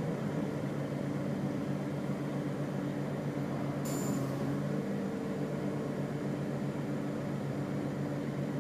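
Iveco Crossway LE bus's Iveco Cursor 9 six-cylinder diesel engine running steadily, heard from inside the bus. A brief sharp hiss comes about four seconds in.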